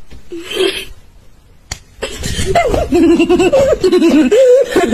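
A person laughing loudly in repeated bursts, starting about halfway in after a quieter stretch broken by a single click.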